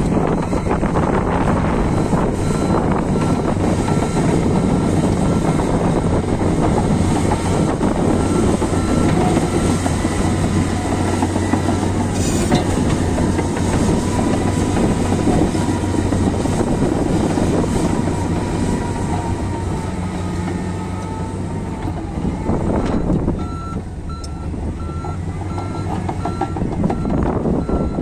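Komatsu D155A crawler bulldozer's diesel engine running under load, with its steel tracks clanking as it pushes and levels dirt. A reversing alarm starts beeping evenly about five seconds before the end.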